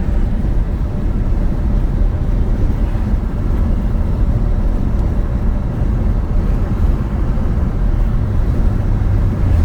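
Steady low rumble of road and engine noise from inside a moving vehicle.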